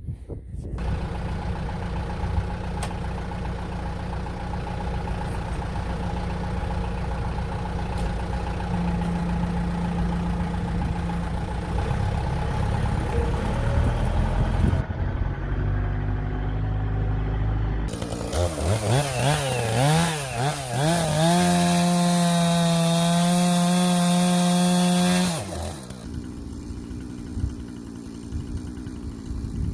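An engine running steadily, then about 18 seconds in a chainsaw revs up, its pitch wavering and climbing. It holds at full throttle for several seconds before dropping back near the end.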